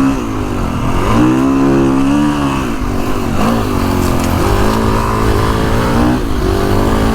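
Kawasaki KX450X dirt bike's single-cylinder four-stroke engine under way, its pitch rising and falling several times with the throttle and gear changes.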